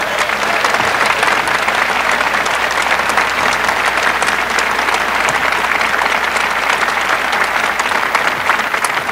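Large crowd applauding steadily, the sound of many hands clapping at once.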